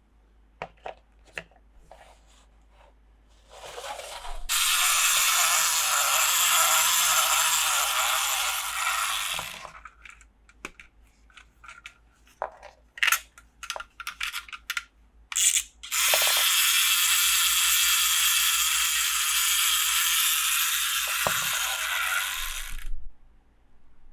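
Handling sounds from unboxing a plastic toy playset: scattered light clicks and taps, and twice a long, steady hissing rasp lasting about five and then about seven seconds.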